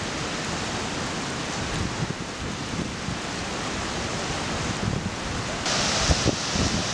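River in flood, fast brown water rushing steadily; about two-thirds of the way in it becomes louder and hissier as the water churns white through the arches of a stone bridge. Wind buffets the microphone in low thumps near the end.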